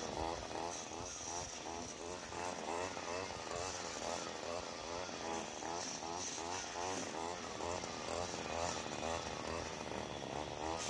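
Gas string trimmer engine running continuously, its pitch wavering up and down several times a second as it works.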